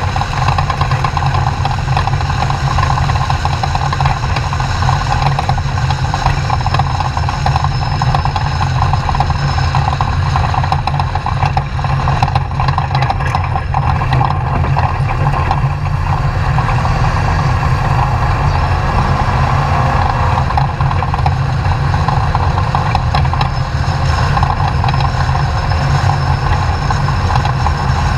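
Class 2000 off-road desert race truck's engine running steadily and loud.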